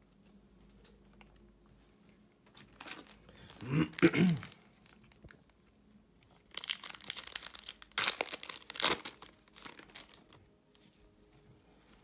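A foil wrapper of a Panini NBA Hoops trading-card pack is crinkled in gloved hands, then torn open in two loud rips in the second half.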